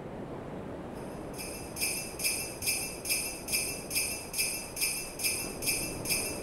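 Jingle bells shaken in a steady beat, about two shakes a second, starting about a second in, over the steady wash of ocean surf.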